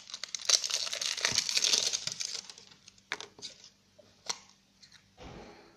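Thin plastic wrapping crinkling as it is peeled off a round slime container by hand: a dense run of crackling for about the first two and a half seconds, then a few scattered clicks and crackles.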